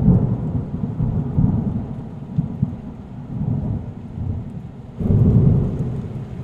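Thunder rumbling over steady rain. The rumble is loud at the start, eases off, and swells again about five seconds in.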